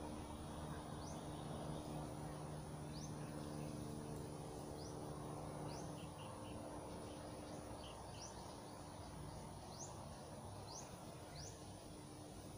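Quiet rural outdoor ambience: a bird repeats a short, high, rising chirp about once a second, over a steady low hum that fades out a little past halfway.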